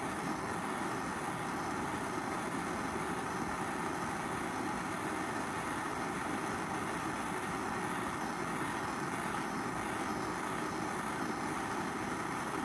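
Propane torch flame hissing steadily as it heats a spot of the steel quarter panel to shrink oil-canning metal.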